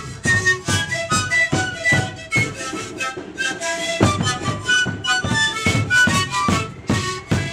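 A group of panpipes playing many short, overlapping breathy notes over a steady beat of large double-headed drums struck with sticks.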